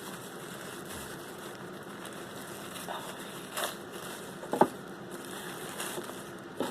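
Packaging being unwrapped by hand from a small figurine: faint crinkling with a few sharp clicks, the loudest about four and a half seconds in.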